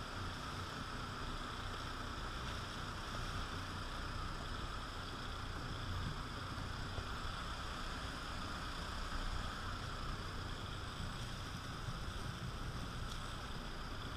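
Sport-fishing boat's engine running steadily under an even wash of wind and water noise.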